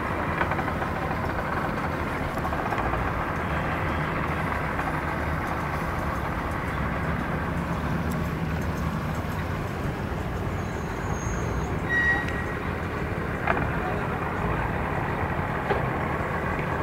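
Outboard boat motors idling at low speed, a steady low engine rumble. A brief high-pitched tone sounds about twelve seconds in.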